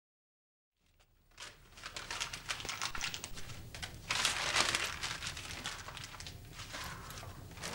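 A fire being lit in a fireplace: paper crumpling and kindling crackling as the flames catch. It starts about a second in and is loudest around the middle.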